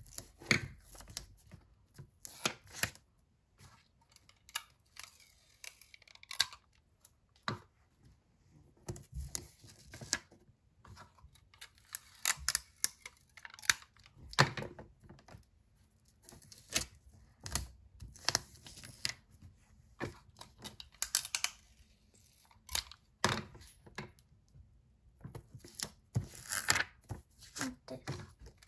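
Double-sided tape being pulled off a dispenser and torn into strips, in irregular short rips, with taps and rubbing as the strips are pressed down onto paper.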